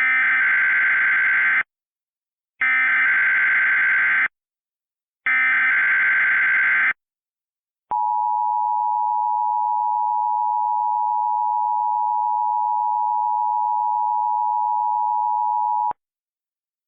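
Emergency Alert System SAME header: three identical short bursts of warbling digital data, about a second apart. About eight seconds in, the two-tone EAS attention signal starts, holds steady for about eight seconds and cuts off. Together these mark the start of a new emergency alert.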